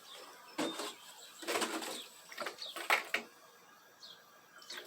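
Birds calling in the background, short falling chirps, mixed with a few brief clattering knocks.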